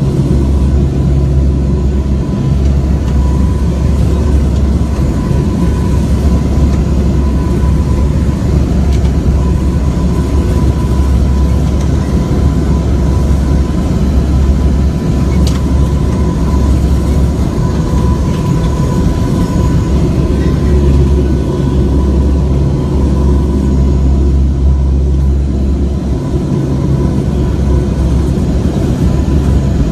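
Aircraft in flight: a loud, steady low roar of engines and airflow with a constant hum, unbroken throughout.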